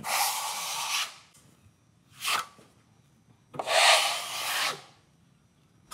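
A steel plastering knife scraping as it spreads and feathers a top coat of joint compound over plasterboard. There are three strokes: one about a second long at the start, a short one about two seconds in, and another of about a second starting around three and a half seconds in.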